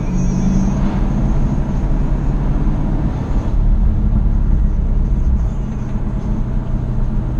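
Jaguar F-Type SVR's supercharged V8 running at fairly steady revs under way, with tyre and road noise.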